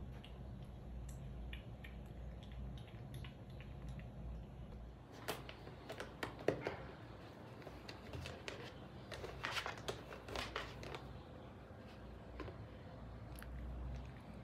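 Faint sounds of a British Shorthair kitten: small wet chewing clicks as it eats wet food from a steel bowl, then louder scratching and rustling against a cardboard tissue box between about a third and three quarters of the way through. A low steady hum runs underneath.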